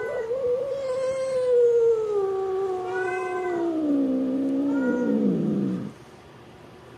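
Feral long-haired tabby cat giving one long, drawn-out yowl that slides slowly down in pitch and stops about six seconds in. It is a frightened cat's defensive warning while being stroked with a grooming glove.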